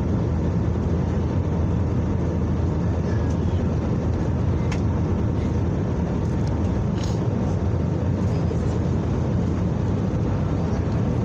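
Steady cabin noise inside an Airbus A321neo airliner: an even, low rush of engine and airflow noise, with a couple of faint clicks partway through.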